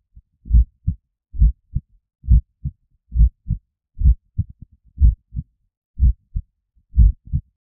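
Heartbeat sound effect: low double thumps (lub-dub) repeating steadily a little faster than once a second, stopping near the end.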